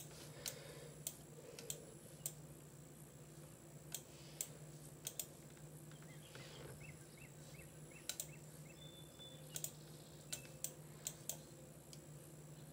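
Irregular single clicks at a computer, from mouse buttons and keys, over a steady low hum.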